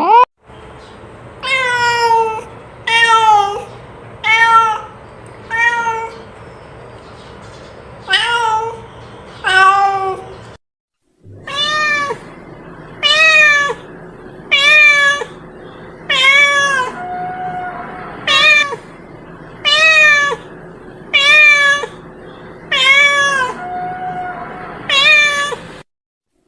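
Domestic cat meowing over and over: short, pitched meows that rise and fall, about one every second and a half, with a brief silent break a little before the middle.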